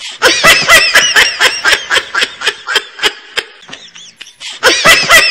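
High-pitched laughter with rapid, even 'ha-ha' pulses, about five a second, that starts again from the top near the end: a comedy laugh sound effect.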